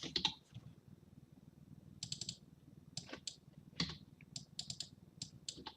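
Computer keyboard being typed on: faint, irregular clusters of key clicks.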